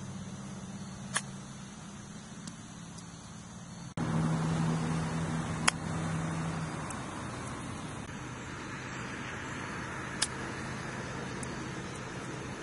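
Iron clubface striking golf balls on chip shots: three sharp clicks, about a second in, near the middle (the loudest) and near the end, over a steady low motor hum.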